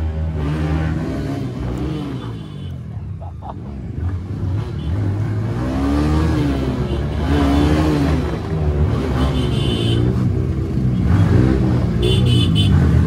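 Motorcycle engine running as the bike is ridden slowly, the revs rising and falling with the throttle; short high beeps near the end.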